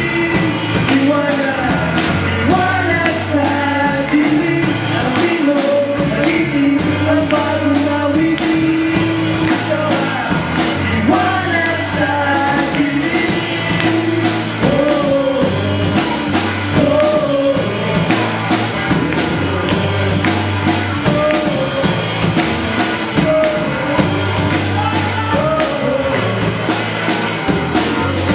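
Live band performance: several male voices singing together into handheld microphones over a drum kit and electric guitars. The music plays continuously with a steady beat.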